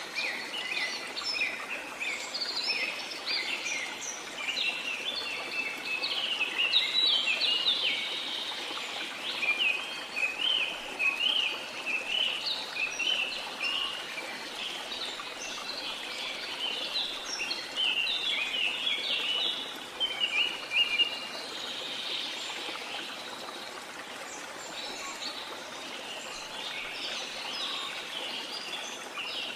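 Many birds chirping in quick, overlapping runs of notes over the steady rush of a waterfall.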